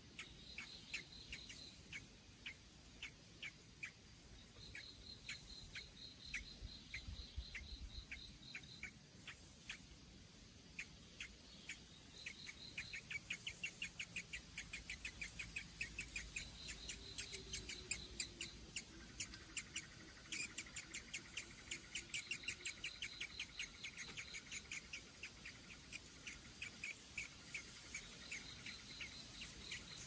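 Insects trilling in short high bursts that come and go. Under them, short high chirps repeat several times a second, quickening and growing louder from about halfway in.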